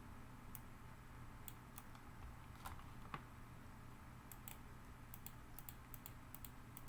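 Faint, irregular clicks of a computer keyboard and mouse over a low steady hum.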